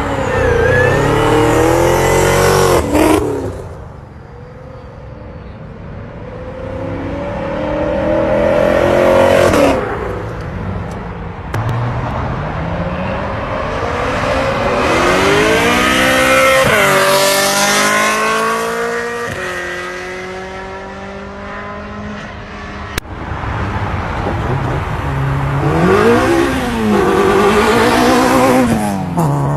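Cars leaving a car meet one after another, engines revving and accelerating away; about four separate passes, each rising and then falling in pitch.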